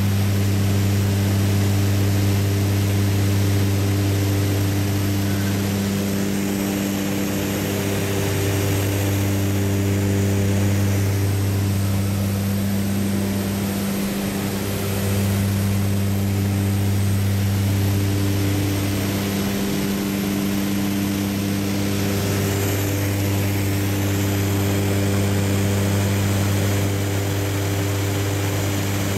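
Small propeller plane's engine running steadily in flight, heard inside the cockpit: an even low hum with its overtones over a constant rush of air noise.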